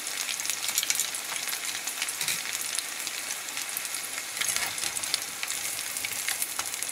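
Starch-battered pork pieces deep-frying in hot oil: a steady sizzle full of small crackles and pops.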